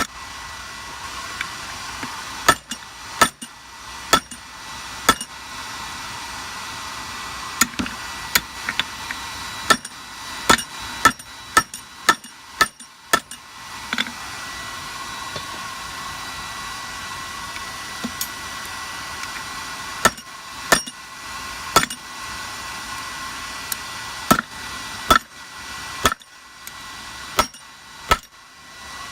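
Hammer blows on hot steel at an anvil while forging a bottle opener, struck in irregular runs of a few blows with pauses between them. Under the blows is a steady hiss.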